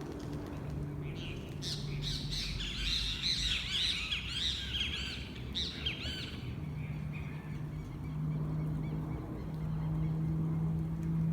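Birds chirping in a busy, overlapping chorus for about five seconds, then thinning out, over a steady low hum.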